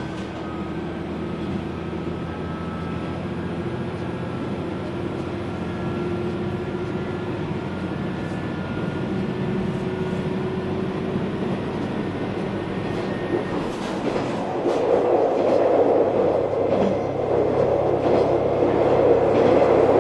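JR KiHa 120 diesel railcar under way, heard from inside the car: steady diesel engine drone with wheel and rail rumble, which grows louder about three quarters of the way through.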